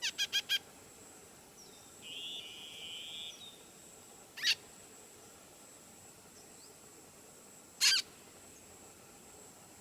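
Birds calling: a quick run of four short chirps, a warbling trill about two seconds in, and two short harsh squawks, one near the middle and one near the end.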